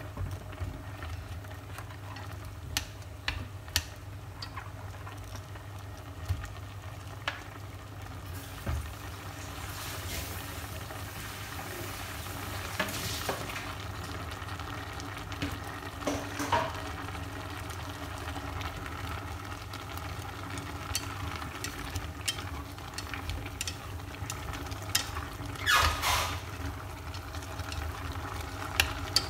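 Eggplant and minced pork sizzling and simmering in a stainless steel pot as the eggplant starts to braise, with scattered clicks of chopsticks and pieces against the pot. A few louder stirring noises come and go, the loudest near the end.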